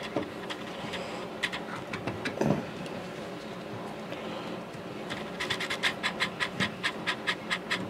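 Screwdriver backing out a mounting screw from the hole-kicker bracket under a pinball playfield. A few scattered taps and a scrape come first, then a quick even run of metal clicks at about five a second starts about five seconds in.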